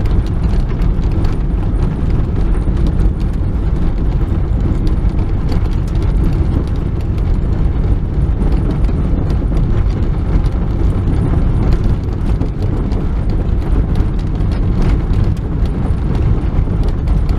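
Car rolling slowly down a gravel road, heard from inside the cabin: a steady rumble of tyres on loose gravel, dotted all through with small crackles and pops of stones, over the Toyota 7A-FE four-cylinder engine running at about 2,000 rpm.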